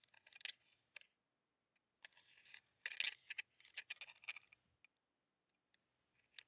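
Faint scattered clicks and crackles of a crab picking at wet mud with its claws, in a short cluster about half a second in and a denser run between about three and four and a half seconds.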